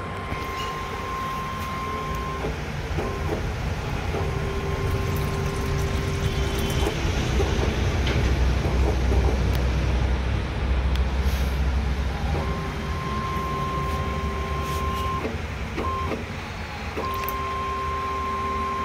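Paint tinting machine dispensing colorant: its pump motors whine at a steady pitch in stretches of two to three seconds, stopping and starting again, over a steady low hum.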